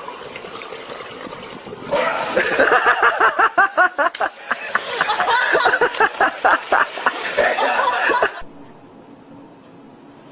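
A person laughing hard in rapid, repeated bursts, starting about two seconds in after a stretch of noisy, splashy sound, and cut off abruptly near the end.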